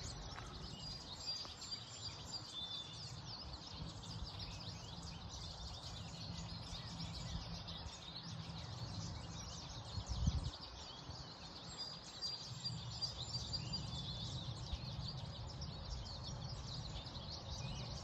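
A flock of small finches calling all around, with many short, high, overlapping chirps and twitters and a few thin held whistles. The recordist takes them for yellow finches (American goldfinches). A faint low rumble runs underneath, with one dull bump about ten seconds in.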